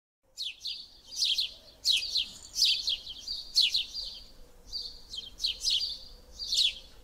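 A bird chirping: a steady run of short, high chirps, often in pairs.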